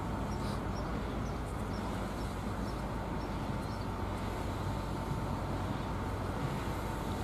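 Heritage train with a steam locomotive moving slowly, a steady low rumble without distinct exhaust beats.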